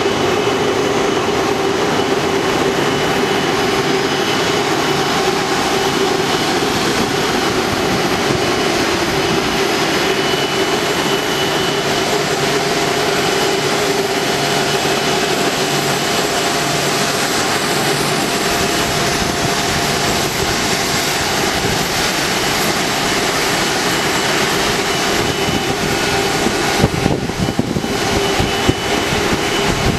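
Airbus A330-200's jet engines running at low power close by: a steady whine over a loud rush. About 27 seconds in, an uneven low rumble joins it as the aircraft swings past.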